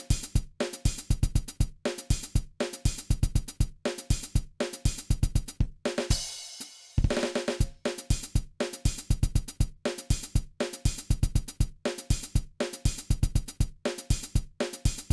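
Music with a drum-kit beat: short, choppy hits with kick, snare and hi-hat about twice a second, broken by a sustained cymbal wash about six seconds in before the beat resumes.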